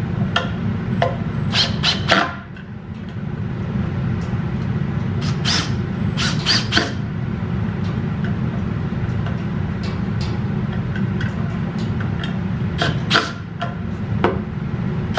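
Cordless drill driving screws through pocket holes into a wooden case, its motor running in long spells that pause briefly about two seconds in and again near the end, with short sharp clicks and squeaks between.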